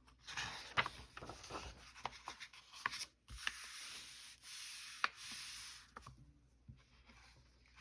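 Coloring book pages being handled and turned: a series of soft papery swishes and light taps as a hand slides over the paper.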